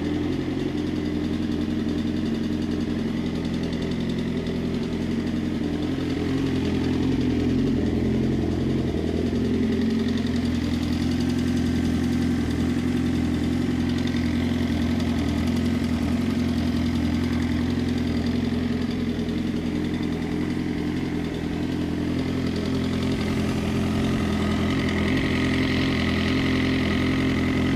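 Suzuki GSX-R inline-four engine idling steadily with a ticking from inside the engine. The tick is present at idle and goes away at about 2500 rpm; resetting the cam chain tensioner stopped it for only about five minutes, so the owner suspects the cam chain tensioner or the timing chain.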